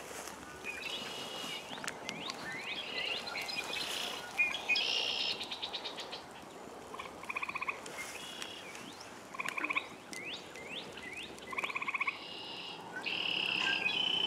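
Frogs calling: short pulsed trills repeating about every two seconds, among many quick rising chirps.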